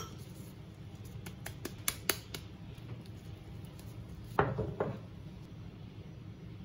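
Kitchenware being handled: a few light clicks, then two louder knocks about half a second apart a little past halfway, over a steady low hum.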